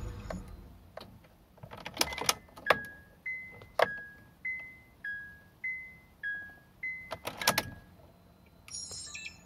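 The Honda Accord V6's engine rumble dies away in the first second. Then the car's electronic warning chime beeps about nine times, alternating between a higher and a slightly lower tone, with a few clicks and a knock near the end.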